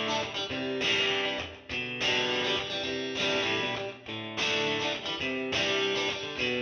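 Outro music: strummed guitar chords.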